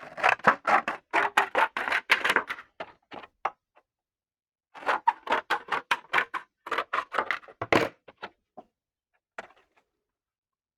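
Rapid clicking and knocking of small hard parts being handled, in two runs of several seconds with a short pause between, then one last faint tap.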